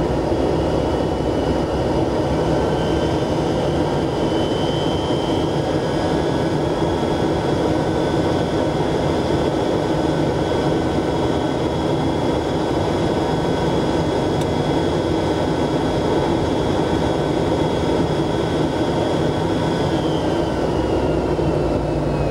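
Cabin noise of a BAC One-Eleven taxiing: a steady low rumble from its rear-mounted Rolls-Royce Spey turbofans, with a high whine that holds steady and then falls away near the end.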